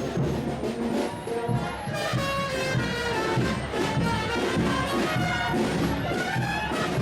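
Music played by brass instruments over drums.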